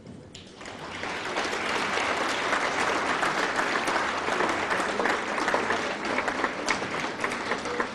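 Audience applauding at the end of a performance: the clapping starts about half a second in, swells to full within a second, then holds steady.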